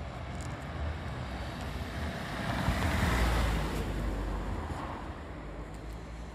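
A car passing by on the street, its tyre and engine noise growing to a peak about three seconds in and then fading away.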